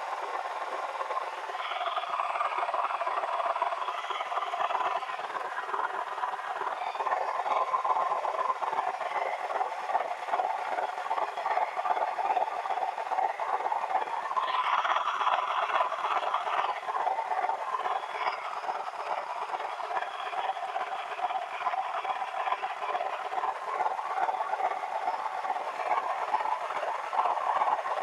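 The abnormal noise that a Nissan C25 Serena has suddenly developed: a steady, rattly mechanical sound.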